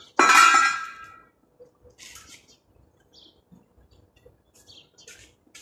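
A sharp clang of struck steel tube or frame that rings out and fades over about a second, followed by scattered faint knocks and clicks.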